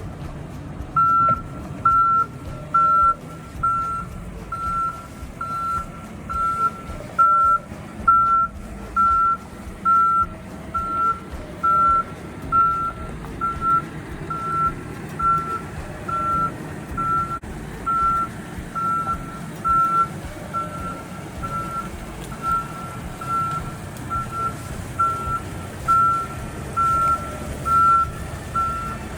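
Backup alarm of a Case 580 Super N backhoe beeping steadily about twice a second as the machine reverses, with its diesel engine running underneath.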